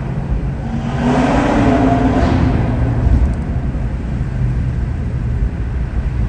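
BMW M140i's turbocharged 3.0-litre B58 straight-six, breathing through a custom exhaust, accelerates hard about a second in, its note climbing, then eases back to a steadier, lower run.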